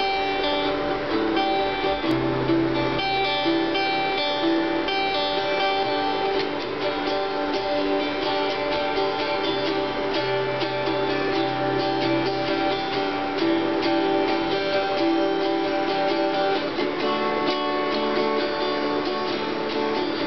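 Acoustic guitar played by hand, a steady run of plucked and strummed chords with a change of chord near the end.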